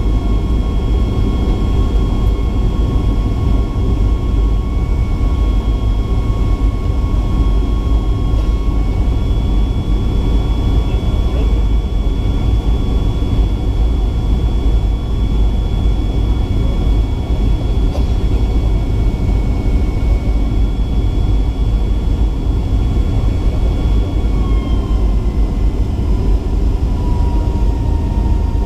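Cabin noise of a Boeing 757-300 with Rolls-Royce RB211-535C engines: a steady rumble and rush of air with several thin engine whines, which drop slightly in pitch near the end as the thrust changes.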